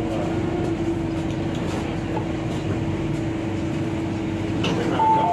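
Steady hum inside an MTR South Island Line S-train car, with a steady mid-pitched drone. About five seconds in, a two-note electronic chime starts, its two tones alternating.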